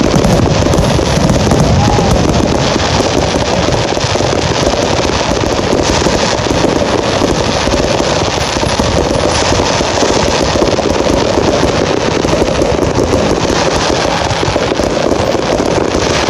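Fireworks crackling in a dense, continuous barrage, with no single big bang standing out.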